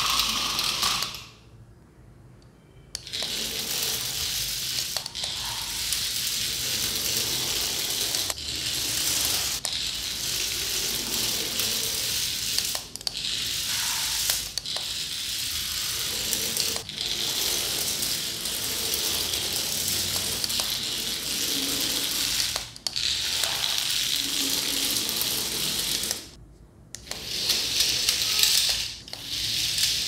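Small geared motors of remote-control toy crawlers (a centipede and snakes) running, a steady mechanical gear noise. It stops briefly about two seconds in and again near the end, then starts again.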